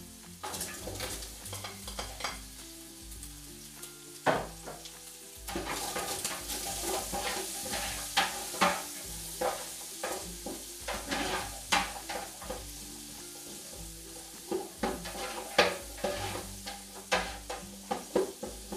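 Garlic and onion sizzling as they are sautéed in a pan with pancetta, a utensil stirring and knocking against the pan with many short clicks. The sizzle grows louder about five seconds in.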